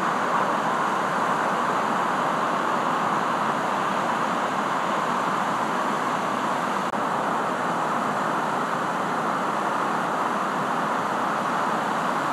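Continuous rushing noise of breaking surf, steady and even, with no single wave standing out.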